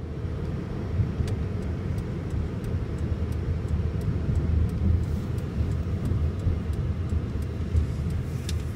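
A steady low engine rumble with travel noise, heard from inside a moving vehicle.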